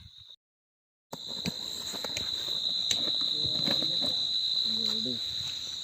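Crickets trilling steadily in a high, continuous chorus, with a few faint clicks and knocks mixed in. The sound drops out completely for under a second near the start, then resumes louder.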